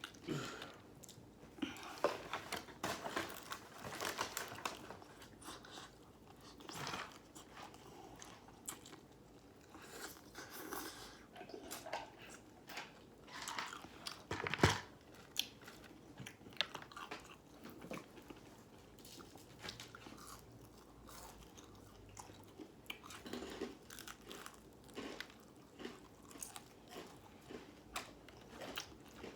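Close-up eating sounds: biting into and chewing crispy fried chicken, with irregular crunches of the breading, one sharp crunch louder than the rest about halfway through.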